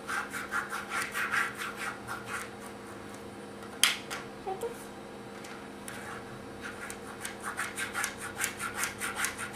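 A pen scribbling rapidly back and forth on paper, about six strokes a second, in two runs with a pause in the middle. A single sharp click comes about four seconds in.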